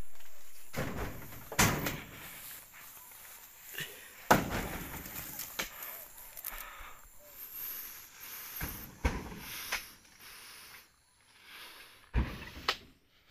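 Oil palm fruit bunches thudding heavily as they are thrown and loaded, a series of irregular heavy thuds and knocks; the loudest comes about four seconds in.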